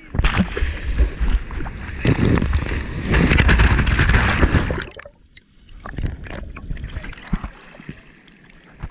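Sea water churning and splashing over the microphone for about five seconds as a surge of foamy water swamps the camera, then quieter lapping with small splashes.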